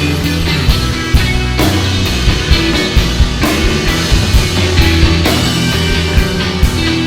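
Live rock band playing an instrumental passage: guitars, bass guitar and a drum kit, with steady drum hits over a sustained bass line.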